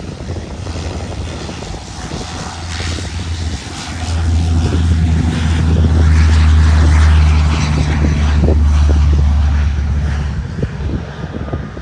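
Rockwell Commander 690's twin Garrett TPE331 turboprop engines and propellers running up, a low steady drone with a higher whine over it. The drone swells about four seconds in, is loudest mid-way, and fades near the end as the aircraft moves off down the runway.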